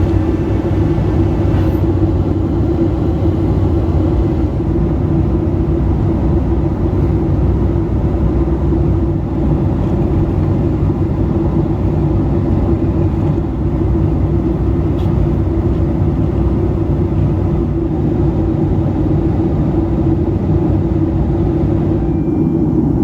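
Steady cabin noise of a Boeing 757-300 airliner in flight: an even roar of the jet engines and airflow past the fuselage, unchanging.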